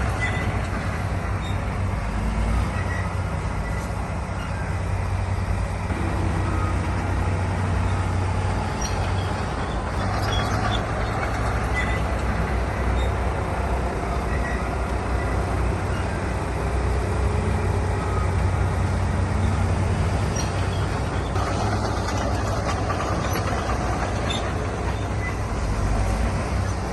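Heavy diesel earthmoving machinery running steadily under load, a deep low engine rumble with faint scattered clanks.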